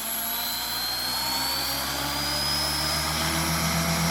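Beam Archon 500 electric RC helicopter spooling up: a high motor whine rising slowly in pitch as the rotor speeds up, over a steady low rotor hum.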